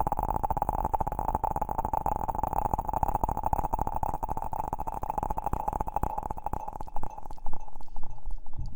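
Close-miked ASMR rustling: a dense stream of small crackles and scratches over a steady mid-pitched tone, growing louder near the end.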